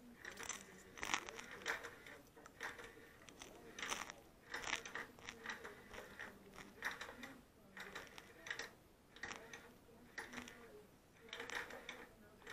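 Cat licking and chewing a piece of popcorn: faint, irregular crunchy clicks and smacks, a few a second.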